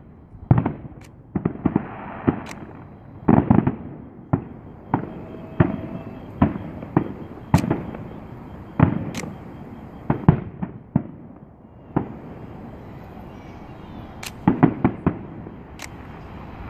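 Aerial fireworks shells bursting in a fast, irregular series of sharp bangs, some coming in quick clusters.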